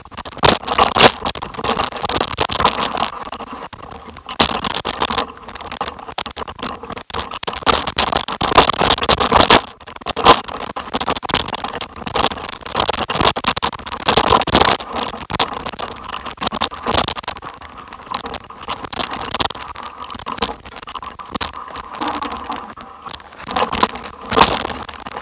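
Bicycle rolling fast downhill over a rough, stony dirt trail: tyres crunching and scraping on gravel, with irregular knocks and rattles as the bike is jolted over rocks.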